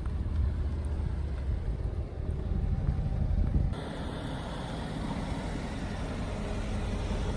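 Mercedes-Benz SL550's 4.7-litre twin-turbo V8 running, with a deep, low rumble. A little over a third of the way in, the sound changes abruptly to a lighter, steadier, hissier engine noise.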